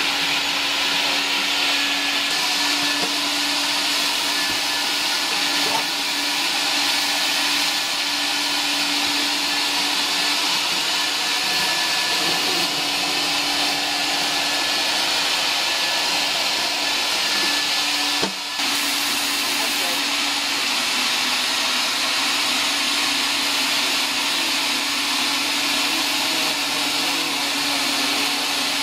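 Nobles commercial wet vacuum running steadily, picking up water from a wet concrete floor through a squeegee floor tool: a steady hum under an even rushing noise, with a brief dip about eighteen seconds in.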